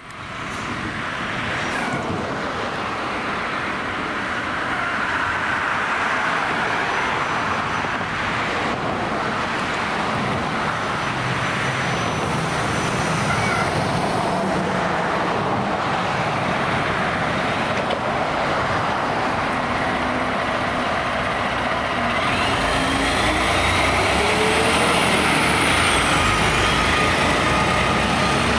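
Diesel engine of a Pierce tiller ladder fire truck running as it pulls out of the station and drives off. The engine noise grows louder and deeper about three quarters of the way through as the truck swings past, with a few faint whistling whines.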